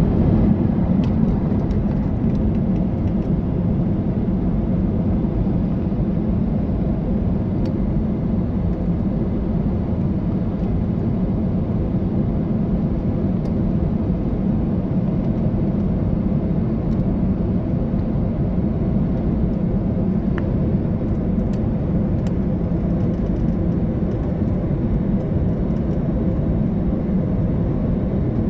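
Steady cabin noise of an airliner in flight: the jet engines and rushing air heard from a window seat inside the passenger cabin, a constant low rumble with a faint steady hum in it.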